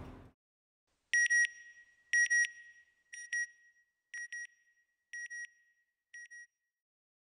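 Electronic double beep, high and ringing, repeated about once a second six times and fading away like an echo: the audio sting of the NASA Goddard Space Flight Center end-title logo.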